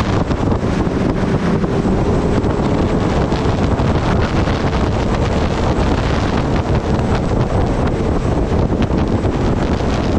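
Strong wind rushing over the microphone of a sport motorcycle at highway speed, with the bike's engine running steadily underneath.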